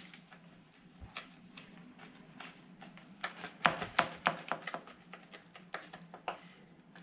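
Kitchen knife cutting through a baked oat-and-banana bar, giving a run of irregular crisp crackles and taps as the blade breaks through the oats and meets the surface beneath. The crackling is thickest a little past halfway.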